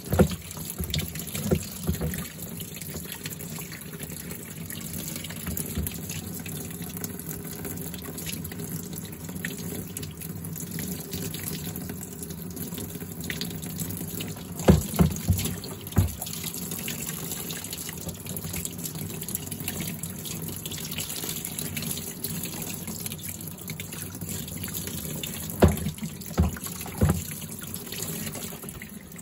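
Tap water running into a utility sink and splashing over a dirty shop vac part as it is rinsed by hand. A few sharp knocks, midway and near the end, over the steady splashing.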